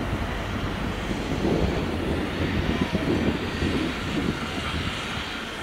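Three-cylinder LMS Jubilee-class steam locomotive 45690 Leander moving slowly with a coach, a steady low rumble and hiss with steam escaping at the cylinders. It grows louder and rougher from about a second and a half in for a few seconds, then eases slightly.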